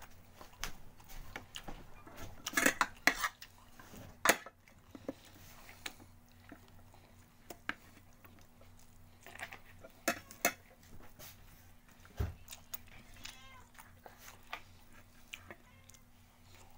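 A person eating fried chicken by hand: chewing and mouth noises with scattered sharp clicks and taps on the plate, loudest around three and four seconds in and again about ten seconds in. A faint steady hum runs underneath.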